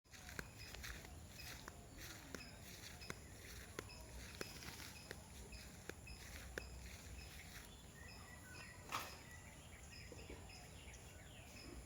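Birds calling in short, repeated high notes over a steady high-pitched insect drone, with scattered faint clicks and one louder click about nine seconds in.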